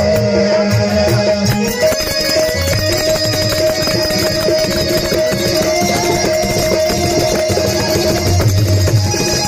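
Harmonium holding steady reed notes, with small brass hand cymbals clicking in rhythm: the instrumental passage of a folk song, the voice resting.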